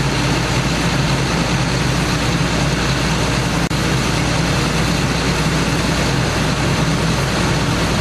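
Horizontal directional drilling rig's heavy diesel engine running steadily, a low, loud drone with a broad mechanical noise over it. The sound cuts out for a moment about halfway through.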